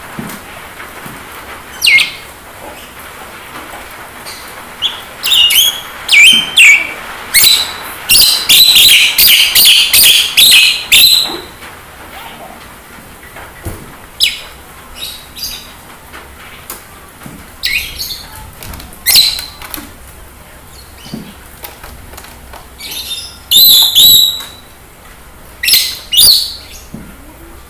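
Caged Javan myna calling: loud, sharp, shrill notes in short clusters, with a dense chattering run about eight to eleven seconds in and scattered single calls after. A faint steady hiss lies underneath.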